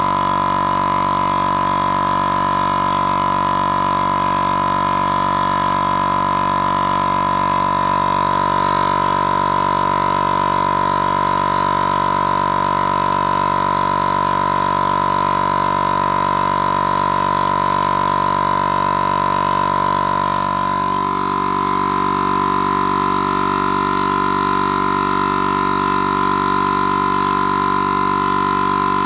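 Portable piston air compressor running steadily with an even, tonal hum, pumping air into the launcher's tank as the pressure builds past 60 PSI. About twenty seconds in, its tone shifts slightly.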